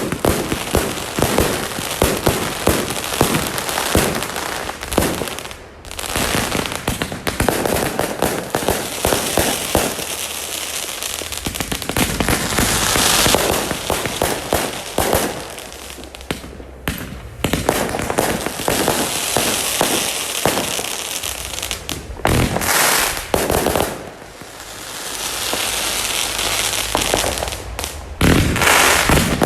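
Fireworks going off: a dense run of bangs and crackling, with short lulls and stretches of hissing crackle.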